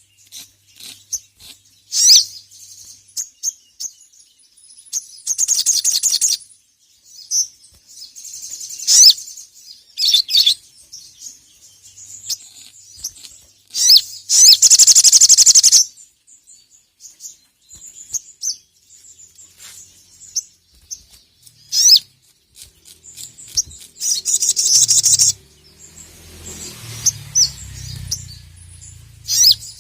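Brown-throated sunbird (sogok ontong) singing: sharp, high chirps broken by rapid chattering trills lasting a second or two. A low rumble sits underneath near the end.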